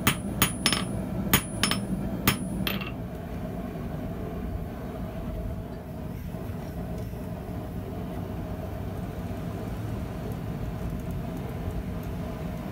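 Hand hammer striking a red-hot 6 mm mild steel rod on a steel anvil face to taper its end: about six sharp, ringing blows at an uneven pace in the first three seconds. After that there is only a steady low background hum.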